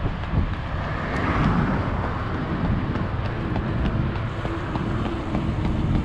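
Steady low rumble of wind and road noise on a moving microphone, with faint regular ticks through it.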